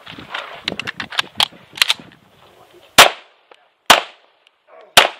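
Three 9mm pistol shots from a Tanfoglio Stock 2 Xtreme, about a second apart, starting about three seconds in. Before them come quieter clicks and scuffs of movement.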